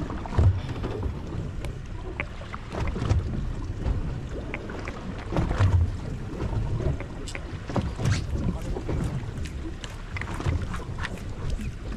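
Wind buffeting the microphone in irregular low gusts, with water slapping against the side of a small boat and scattered light ticks.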